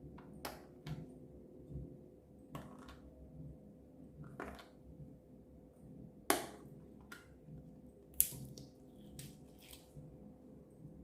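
Slime being handled and mixed by hand: irregular sticky clicks, pops and crackles, with two louder snaps about six and eight seconds in.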